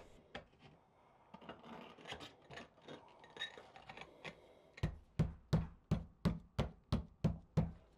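A large ceramic wall tile is set into fresh thinset: first light scraping and clicking as it is positioned, then about nine even knocks, roughly three a second, as it is tapped to bed it into the mortar.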